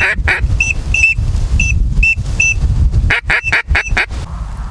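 Duck quacking in two quick runs of several quacks, one at the start and one about three seconds in. Short high whistled peeps come between the runs. Wind rumbles on the microphone underneath.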